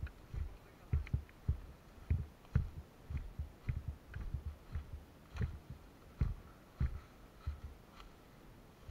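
Irregular low thumps, about two a second, with faint clicks among them: a player's footsteps and gear knocking as they move.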